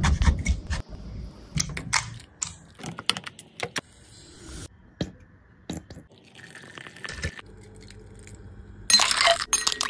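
Close-up food-prep sounds on a hollowed muskmelon shell: a knife cutting into the rind at the start, then a run of clicks and clinks of a spoon against a glass bowl. Sugar pours into the shell with a short hiss about four seconds in, and near the end there is a loud, wet burst as mashed melon pulp is spooned in.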